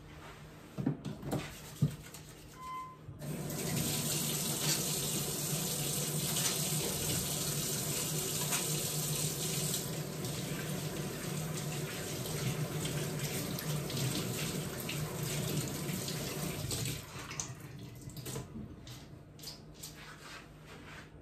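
Kitchen tap running steadily into a sink while hands are washed under it. It comes on about three seconds in and is shut off after about fourteen seconds, with a few small knocks and clicks around the basin before and after.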